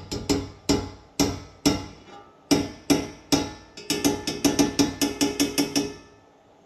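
Metal spoon knocking against a cast iron skillet to shake off dollops of tallow, about two dozen sharp knocks that each set the pan ringing. The knocks come a couple a second at first, then speed up to several a second and stop about a second before the end.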